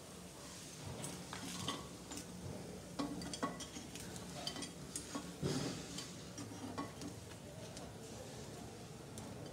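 Oil sizzling faintly in a paddu pan as the cooked paddu are lifted out of its cups, with scattered light clicks and scrapes of a utensil against the pan.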